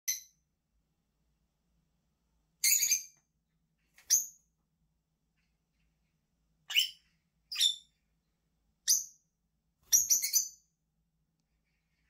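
Peach-faced lovebirds giving short, high-pitched chirps, about seven calls spaced a second or two apart, with a quick run of calls near the end.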